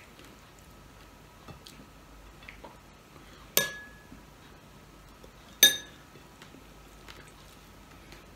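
A metal spoon clinks twice against a small glass bowl, once about halfway through and again two seconds later, each strike ringing briefly. Between the clinks there are only faint small taps of eating.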